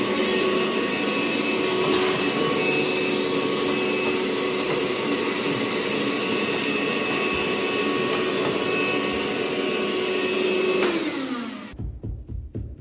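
A small electric motor running steadily with a constant whine, slowing and stopping near the end, followed by a few low knocks.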